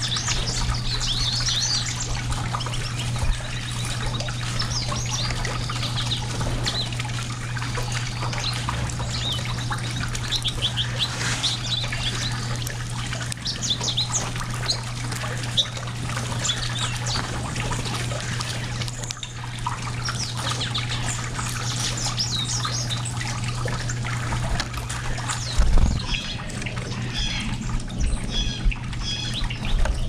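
Many small songbirds chirping and calling, with short high chips and twitters throughout, over a steady low hum. A low thump comes about three-quarters of the way through.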